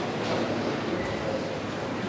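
Indistinct chatter of many people, a steady murmur of voices without clear words.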